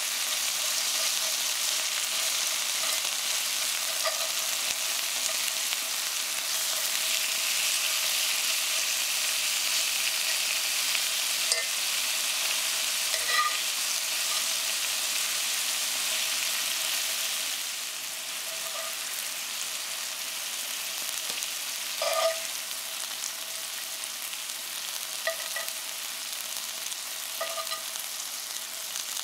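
Chicken thigh fillets sizzling in hot olive oil in a cast-iron skillet as they sear, with a few short clinks of metal tongs against the pan. The sizzle eases a little about two-thirds of the way through.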